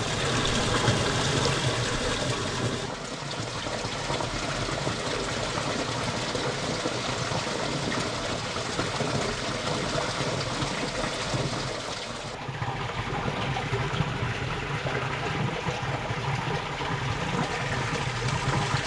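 Water running steadily along a small roadside irrigation channel, its hissing rush thinning in the higher range about twelve seconds in.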